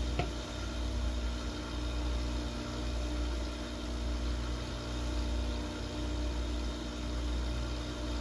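Steady low electric-motor hum with a faint steady drone above it, from shoe-repair shop machinery running. A light click sounds just after the start.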